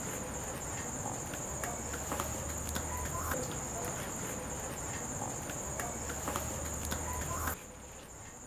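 Crickets chirring steadily, with faint soft slaps of wet hands patting finger-millet (ragi) dough into a roti. The overall sound drops suddenly near the end.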